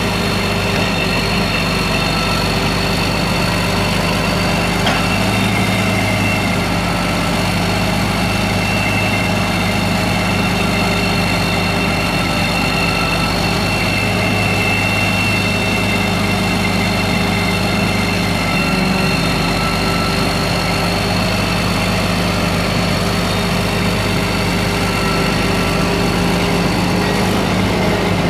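1995 Mack CL713 truck's 12.0 L six-cylinder Mack diesel engine idling steadily, with a steady high whine over it.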